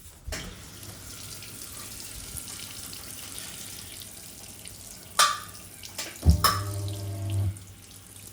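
Hoover 800RL top-loading washing machine filling with water, a steady rushing hiss. About five seconds in a sharp click, then a second click as the motor briefly pulses the drum with a hum for about a second, as it does throughout the fill.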